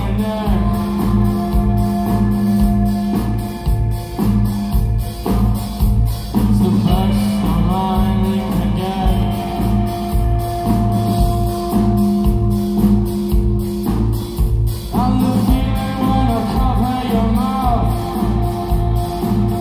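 Live band playing a song: a drum kit keeps a steady beat under bass, electric guitars and keyboard, and a male singer's voice comes in for phrases now and then, most clearly about halfway through and again a few seconds before the end.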